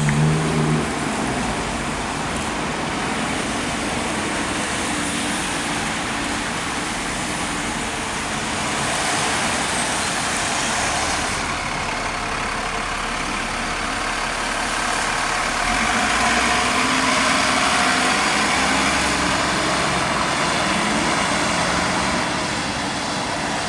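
A large road or rail vehicle's engine running steadily amid traffic noise, a little louder about two-thirds of the way through.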